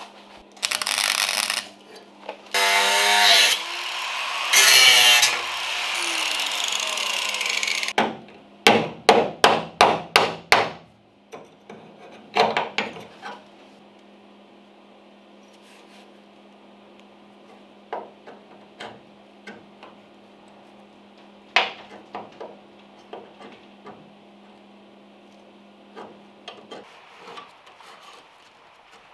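MIG welder tack-welding sheet steel in short bursts, then a longer power-tool run that winds down with a falling whine. Then a quick series of about eight hammer blows on the steel arch panel and two more shortly after, followed by light clicks and taps of hand tools against a faint steady hum.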